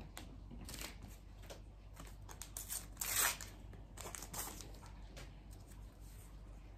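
A shiny trading-card pack wrapper rustling and tearing as it is pulled open, with the cards inside sliding against each other as they are taken out. The loudest rustle comes about three seconds in.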